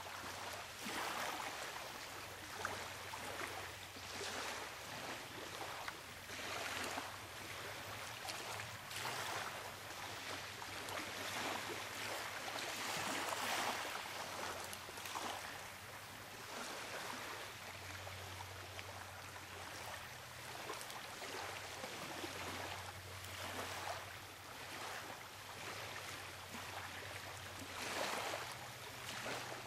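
Rushing water, a steady wash that swells and eases every second or two, with a faint low hum underneath.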